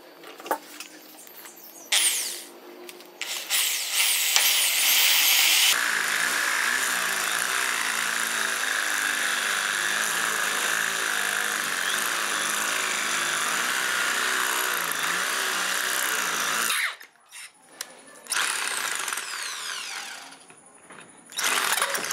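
Electric drill with a twist bit boring into a brass air gun valve body held in a vise. After a few short starts the motor spins up, then runs steadily under load for about ten seconds and stops suddenly. It runs again in shorter bursts near the end.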